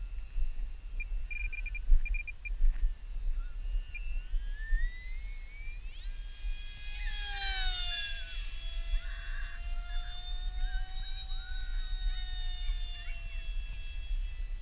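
ParkZone Stryker RC flying wing's brushless electric motor and pusher propeller whining in flight on a 4S battery. The pitch rises about four to six seconds in, is loudest at about six seconds, then sweeps down and holds a lower steady whine as the plane passes and flies off.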